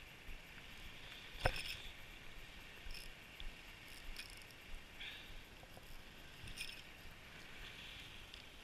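Faint, irregular crunching of boots on icy snow, roughly one step every second or so, with a sharp click about one and a half seconds in.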